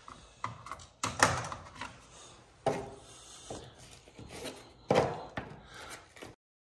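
Plastic wallpaper smoother scraping and rubbing over textured wallpaper in several separate strokes, the loudest about a second in and about five seconds in. The sound cuts off abruptly near the end.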